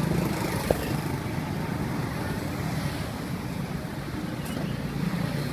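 Outdoor street ambience: a steady rumble of traffic with wind buffeting the microphone, and one short click just under a second in.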